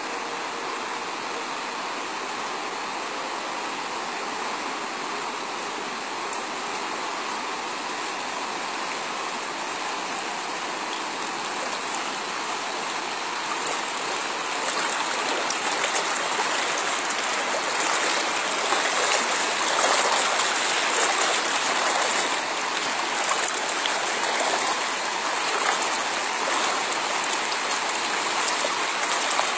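Fast-moving floodwater rushing across a road, a steady noise of running water that grows louder about halfway through.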